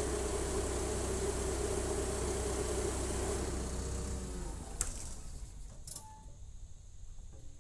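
Cat compact crawler dozer's diesel engine idling steadily, then shut off about four and a half seconds in. Two sharp clicks follow as the cab door is unlatched and swung open.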